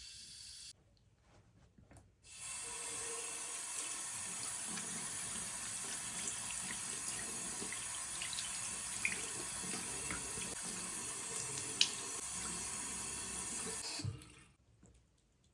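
Water running from a tap into a sink: a brief spurt at the start, then a steady stream with small splashes for about twelve seconds before the tap is shut off.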